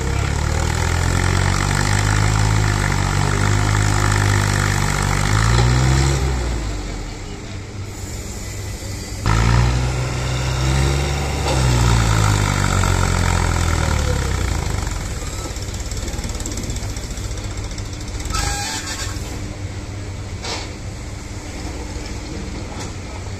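New Holland 3630 tractor's three-cylinder diesel engine working hard to haul a heavily loaded sugar cane trailer through mud, the revs rising and falling twice over the first fourteen seconds. After that it runs more steadily and quieter.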